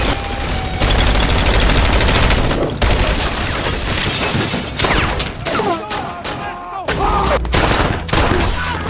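Heavy gunfire in a film shootout: rapid volleys of shots with short lulls, easing off around five seconds in and dense again from about seven seconds.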